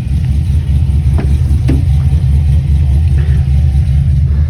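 Holden VZ HSV Senator's 427 cubic-inch Dart-block V8 idling, a deep, steady rumble with an uneven pulse.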